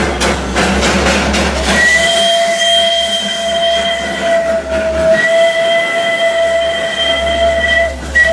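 Narrow-gauge steam locomotive moving off, with steam hissing and exhausting. About two seconds in, its steam whistle sounds a long, steady blast, and a second long blast follows about five seconds in.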